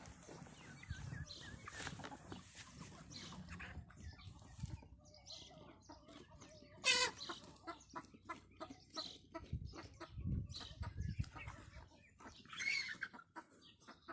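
A flock of Wyandotte chickens clucking, with many short, scattered calls. About seven seconds in comes one loud squawk that slides down in pitch.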